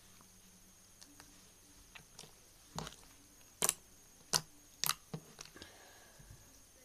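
Jiggly slime being squeezed and poked by hand, giving a handful of sharp little clicks and pops, mostly in a cluster from about three to five seconds in.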